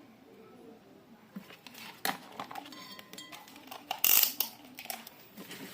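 Handling noises: scattered light clicks and knocks of small parts and tools being worked on, with a short loud rustling scrape about four seconds in.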